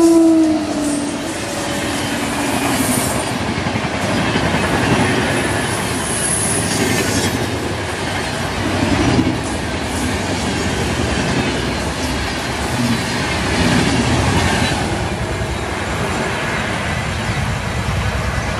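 Swarna Shatabdi Express, hauled by a WAP-7 electric locomotive, passing at full speed. Its horn drops in pitch and ends just at the start, followed by the steady rumble and clickety-clack of the coaches' wheels on the rails, with brief high wheel squeals.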